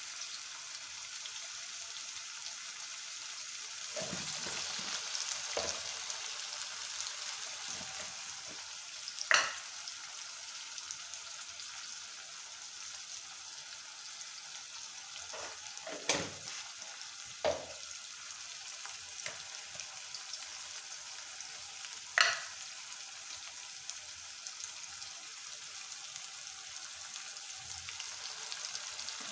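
Capsicum and potato pieces sizzling steadily in oil in an aluminium pot while being stirred, with four sharp knocks of the stirring spoon against the pot.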